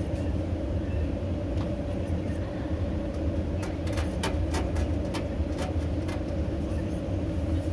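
Steady low rumble of a running motor vehicle, with a quick series of light clicks or rattles around the middle.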